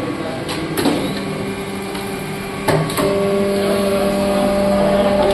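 Hydraulic paper plate making machine running: a steady electric motor hum, weaker for the first few seconds and strong again from about three seconds in, with sharp knocks from the press about a second in and just before the hum returns.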